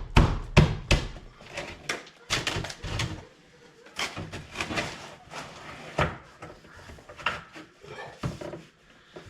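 A series of irregular knocks and clunks, the loudest in the first second.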